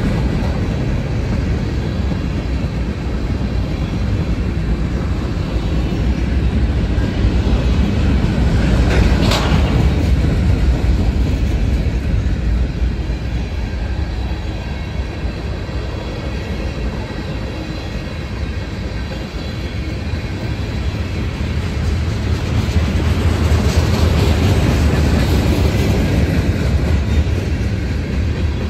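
Freight train cars rolling past, a steady rumble with wheels clattering over the rail, swelling and easing as the cars go by. A brief sharp high sound cuts through about nine seconds in.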